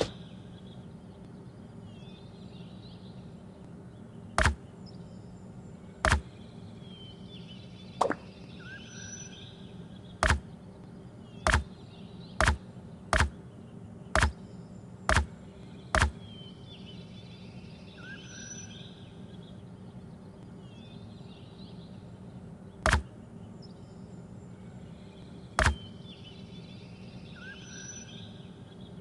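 About a dozen sharp clicks at uneven spacing, most of them bunched between about four and sixteen seconds in and two more later, over a low steady background with faint short high chirps every few seconds.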